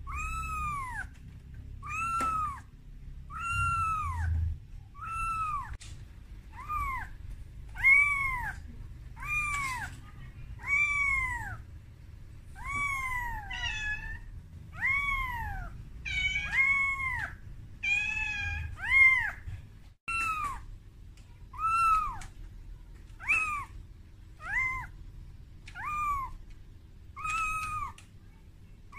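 Young calico kitten meowing over and over, one rising-then-falling cry roughly every second and a half: a frightened kitten's distress cry calling for its mother. Around the middle the cries come closer together and overlap.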